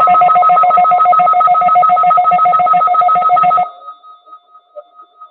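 Emergency Alert System two-tone attention signal sounding loud and steady, then cutting off sharply about three and a half seconds in.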